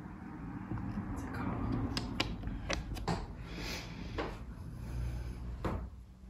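A few light knocks and clicks, several about two to three seconds in and one more near the end, over a low steady rumble.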